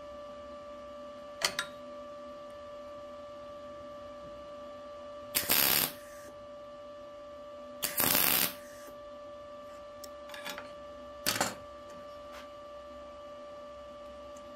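Two short bursts of MIG welding, tack welds of under a second each, about two and a half seconds apart, over a steady electrical hum. A few sharp clicks of metal tools being handled come before and after them.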